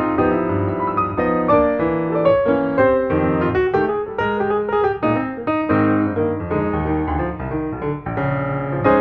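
Background piano music: a melody of struck notes played at an even pace.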